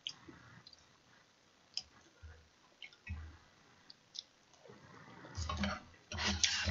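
Quiet eating sounds from a bowl of budae jjigae (Korean army stew): a few light clicks of a ladle and spoon against the pot and bowl, then soft, wet chewing in the last second or so.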